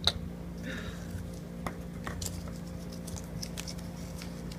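A chocolate surprise egg being opened by hand: scattered small clicks and crackles of the foil wrapper and chocolate shell being broken apart.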